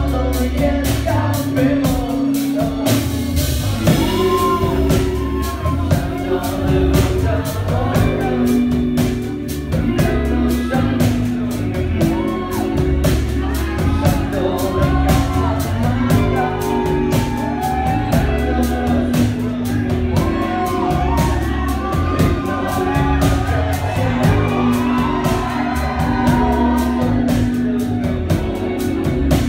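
Live band music with a man singing into a microphone over a steady drum beat, bass and guitar.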